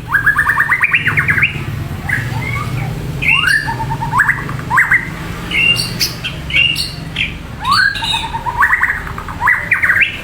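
A murai, a Copsychus songbird, singing phrase after phrase: fast rattling trains of notes and upswept whistles, with a steady low hum underneath.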